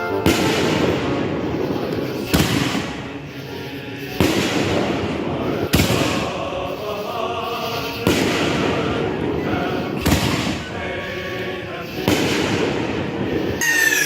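Fireworks going off in a run of loud bangs, about one every two seconds.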